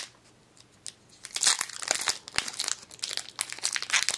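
Foil wrapper of a Pokémon trading card booster pack crinkling and tearing as it is pulled open by hand. It is quiet for about the first second, then a dense run of crackling rustles follows.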